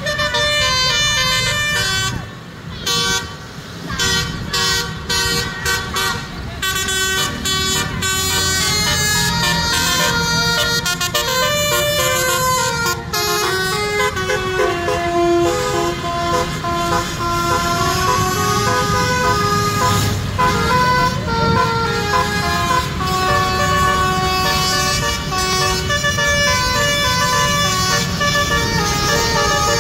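A bus's roof-mounted basuri (telolet) multi-tone air horn playing a tune of stepped horn notes that change pitch every fraction of a second, dropping out briefly a couple of seconds in.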